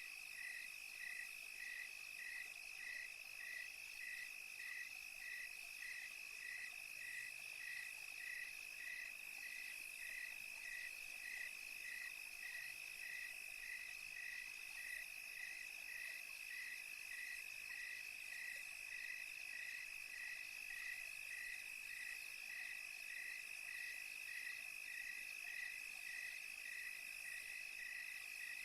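Crickets chirping at night: one steady high trill, with a second caller chirping in even pulses about twice a second.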